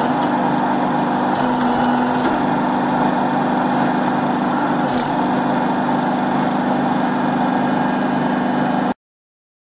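Large circular trimming saw rig running steadily while trimming an oversized log, a loud, even machine noise with a constant low hum. It cuts off abruptly about nine seconds in.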